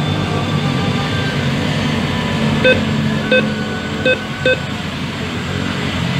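ATM keypad beeping four times as buttons are pressed, each a short electronic beep, over a steady low background rumble.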